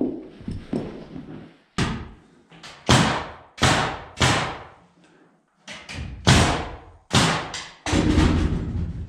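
A series of about eight loud knocks and thuds on wood, each sudden with a short echoing tail, coming unevenly every half second to a second or so.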